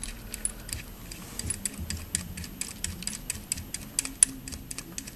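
Light, quick clicking, about four or five clicks a second and unevenly spaced, as the magnetic oil drain bolt with its copper washer is turned back into the Ducati Diavel's sump by hand.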